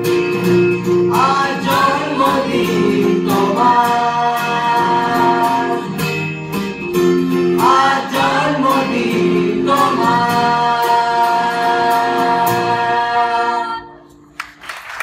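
Voices singing a Bengali birthday song together to a strummed acoustic guitar, with long held notes and a couple of quick ornamented runs. The song ends on a held final note about fourteen seconds in, and clapping begins.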